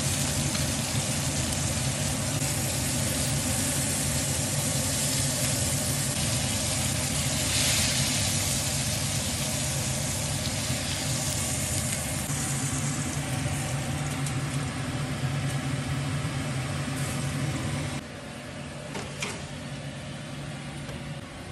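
NY strip steaks sizzling in hot fat with garlic cloves in a stainless steel skillet, being basted and turned with tongs, over a steady low hum. About 18 seconds in the sizzle cuts off, leaving a quieter hum with a few light clicks.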